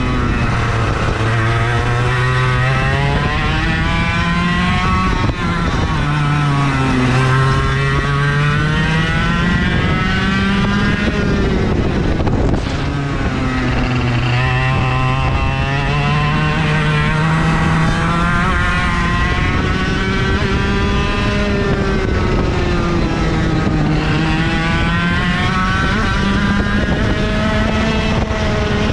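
IAME KA100 100cc two-stroke kart engine, heard on board at racing speed. Its pitch climbs steadily through the revs along each straight and drops as the kart slows for the corners, four or five times over.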